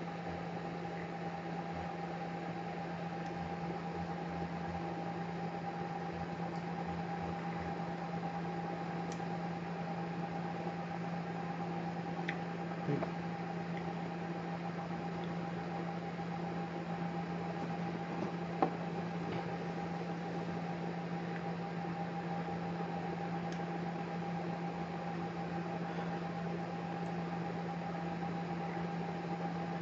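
Steady background hum with an even hiss, like an appliance or fan running, and no clear breath or vapour sound. A small tap comes near the middle and a sharper click a few seconds later.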